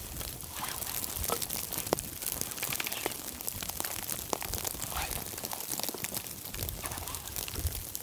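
Steady hiss with scattered sharp clicks and crunches, as twigs and kindling are handled and pushed into a campfire being lit.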